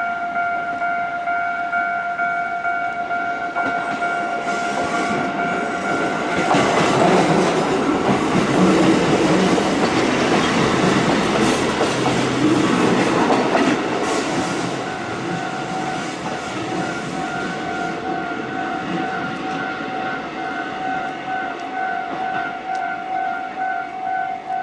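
Level-crossing alarm bell ringing, then a Kotoden electric train passing over the crossing from about six seconds in, a loud rumble and clatter lasting about eight seconds. After the train has gone the crossing bell rings on in an even, pulsing rhythm.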